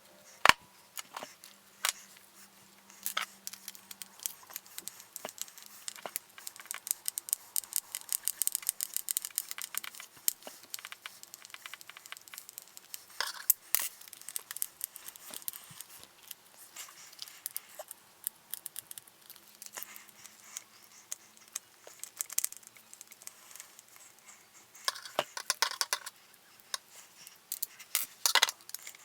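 Quick clicks, taps and rattles of Allen wrenches, screws and plastic and metal RC car parts being handled during disassembly, played sped up as a time lapse. The clicks come in dense runs.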